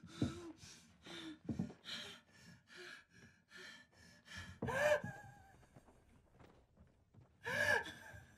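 A woman's quick, shaky breathing, about two breaths a second, broken by a voiced, whimpering gasp about five seconds in. After a short hush there is another gasp near the end.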